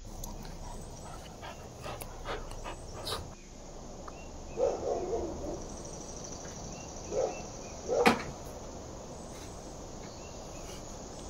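A white husky and a grey pit bull playing and tussling over a stick, with a few light clicks in the first three seconds. Short dog sounds come about halfway through and again twice near eight seconds in, the last of them the loudest.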